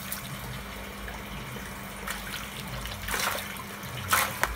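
Water splashing in a shallow, half-drained fish pond as hands grab among thrashing tilapia, over a steady run of water. There are two louder splashes, about three seconds in and again about four seconds in.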